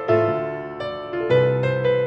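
Acoustic grand piano played solo: slow, mournful bluesy chords, about four struck in turn, each left to ring and fade.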